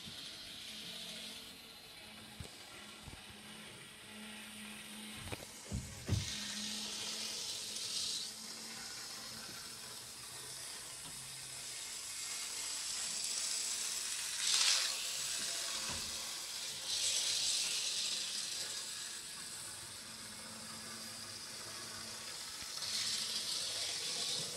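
N scale model train running along its track, a faint steady hum with swells of hiss as it passes, and a few light clicks.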